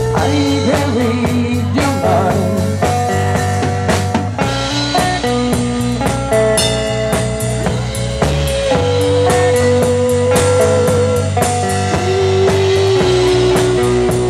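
Live rock-blues band: a female vocalist singing over electric guitar, electric bass and a drum kit, played through PA speakers, with long held notes in the second half.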